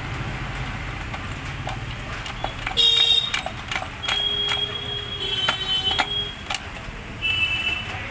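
Light metal clicks and knocks as a kick-start lever is worked back and forth on the kick-start shaft of a Hero Splendor Plus motorcycle crankcase, over a steady low hum, with a few short high whistle-like tones.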